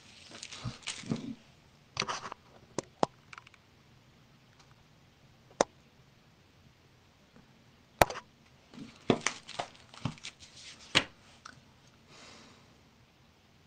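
Handling noises: scattered clicks and taps with a few short rustles, including one sharp, loud click about eight seconds in.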